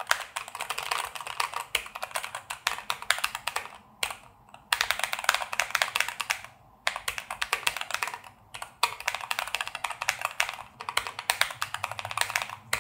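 Fast typing on a NuPhy Air60 V2 low-profile mechanical keyboard with Cowberry switches: a quick run of key clacks that breaks off briefly about four seconds in and again twice later.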